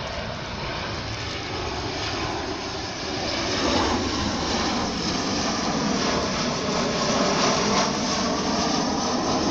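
Southwest Boeing 737 jetliner passing low overhead on approach with its landing gear down. Its twin jet engines make a rushing noise with a steady whine, growing louder about three and a half seconds in.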